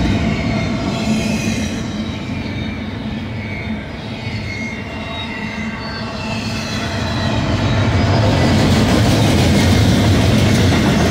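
Double-stack intermodal container train passing close by: steel wheels rumbling on the rails, with thin high squealing tones from the wheels. The rumble grows louder about eight seconds in.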